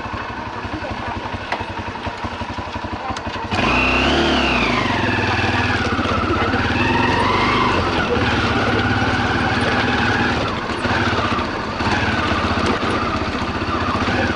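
Motorcycle engine running while carrying a passenger. About three and a half seconds in it gets suddenly louder and its pitch falls and rises as it revs and accelerates.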